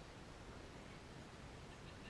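Near silence: faint, steady background hiss of an open microphone with no distinct sound events.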